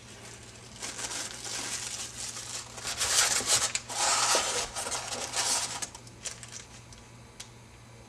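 Plastic wrapping crinkling and rustling as packed parts are handled and unwrapped, loudest in a stretch a few seconds in.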